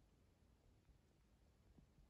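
Near silence, with only a faint low rumble.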